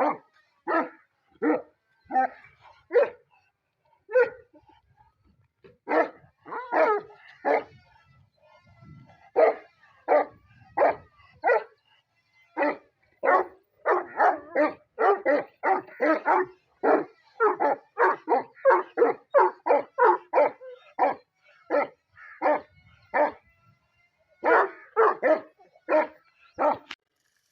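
Dog barking over and over in quick runs of sharp barks, with short pauses between the runs.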